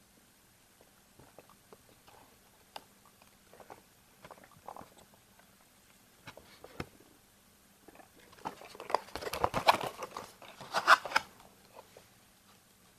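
Cardboard box of a Kinder Surprise six-pack handled by hand: scattered light taps and rubs of fingers on the card, then a denser stretch of cardboard scraping and crackling about two-thirds of the way in, loudest just before it stops, as the box is turned and laid down on the table.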